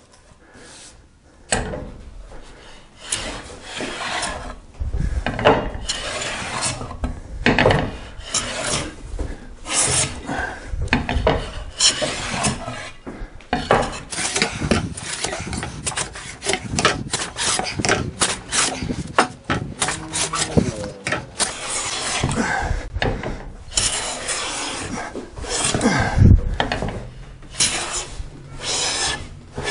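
No. 7 jointer plane taking repeated quick strokes along the face of a wide board, each pass a hiss of the iron slicing off a shaving, starting about a second and a half in. The board is being flattened to remove its twist.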